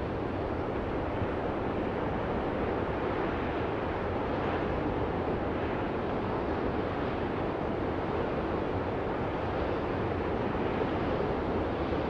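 Ocean surf: a steady rush of breaking waves and churning whitewash.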